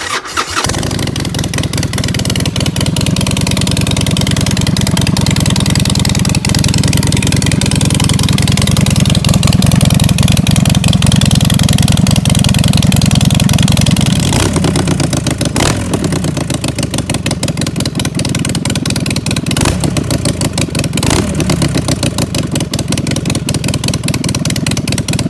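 Harley-Davidson XL1200X Forty-Eight's 1200 cc air-cooled V-twin running loud through unbaffled straight-pipe exhaust. It idles steadily, then in the second half it is blipped several times, the pitch rising and falling with each blip.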